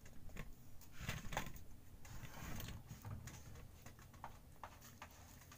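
Faint, irregular light clicks and taps, several in the first half and a few more later, with no speech.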